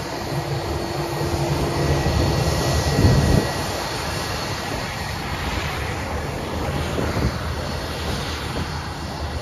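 A narrowbody airliner's twin jet engines running at low taxi power: a steady rumble with a faint high whine over the first couple of seconds and a louder low swell about three seconds in.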